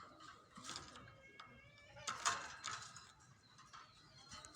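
Caged birds calling in short bursts, with one loud harsh squawk a little after two seconds in.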